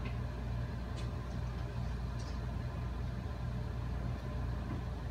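Steady low machine hum of room equipment, with a couple of faint light clicks about one and two seconds in.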